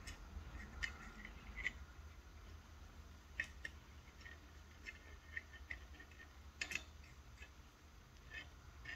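Faint, scattered small clicks and ticks of a thin silicone-insulated wire being handled and positioned against a pin held in a helping-hand clamp, with one sharper click about two-thirds of the way through, over a faint steady hum.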